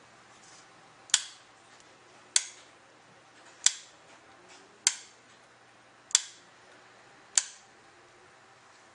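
EnOcean ECO 100 electrodynamic energy harvester switch snapped by hand six times, one sharp click about every 1.25 s. Each push moves a magnet against a coil, generating the pulse that powers a battery-less wireless light switch.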